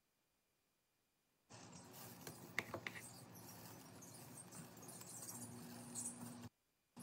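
Wooden spoon scraping and pressing minced red onion against a stainless steel mesh strainer, with a few light clicks of the spoon on the metal rim. It starts after a second and a half of silence.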